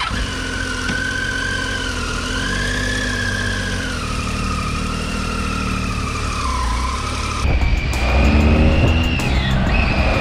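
Triumph Tiger's three-cylinder engine running as the motorcycle moves off at low speed, then getting louder and rising in pitch as it accelerates, from about three-quarters of the way in.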